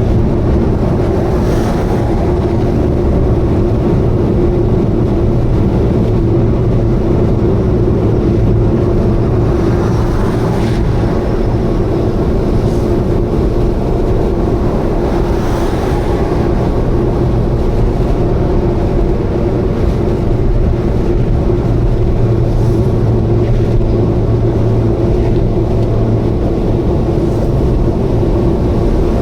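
Subaru Vivio KK3 running at steady expressway speed: a constant drone of its small four-cylinder engine and road noise, carrying an abnormal noise that the owner suspects may be an exhaust leak.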